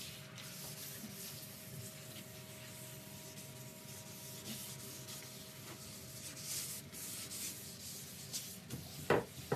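Repeated scratchy strokes of a hand-held pad rubbing the face of a wooden slab, smoothing down the black polyamide filler in its cracks. A few sharp knocks come near the end.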